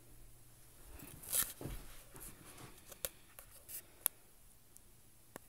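Faint scratching and rustling of a kitten playing with a cloth on a bare wooden surface, with a louder scratchy rustle a little over a second in and a few light clicks later.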